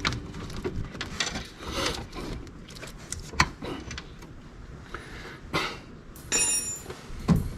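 Scattered clicks, knocks and rattles of hand tools and parts being handled during work on a car battery. A short metallic clink rings clearly a little past six seconds in.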